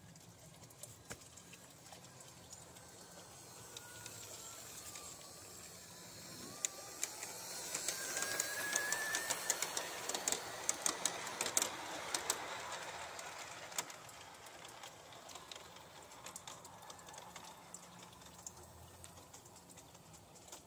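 A G-scale model train running past close by, with a steady rumble and quick clicking from its wheels on the track. It grows louder, peaks, then fades away.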